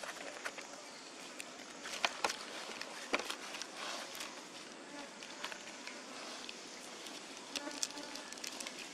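Steady hum of insects, with scattered sharp crackles of dry leaves being handled, the loudest about two and three seconds in.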